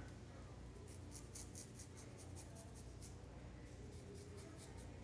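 Faint, soft scratchy strokes, about four a second with a short pause near the middle, as a liquid eyeliner pen is drawn along the eyelid, over a low steady room hum.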